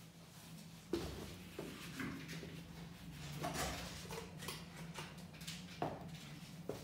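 Scattered light knocks, clicks and shuffling footsteps in a small tiled bathroom, over a low steady hum.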